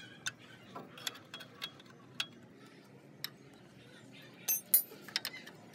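Scattered metallic clinks and taps of a spanner against steel parts, with a sharper cluster of clinks about four and a half seconds in.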